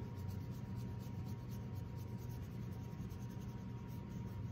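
Faint scratchy rubbing of a bristle brush working thin raw umber paint into a stained canvas, over a steady low hum.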